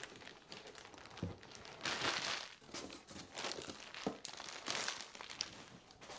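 Clear plastic packaging bags crinkling in irregular bursts as wrapped parts are handled and lifted out of a cardboard box, with a couple of soft thuds.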